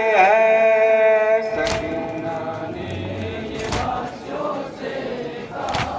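A Muharram noha sung in unison, ending on a long held note about a second and a half in. Crowd murmur follows, with a few sharp strikes about two seconds apart.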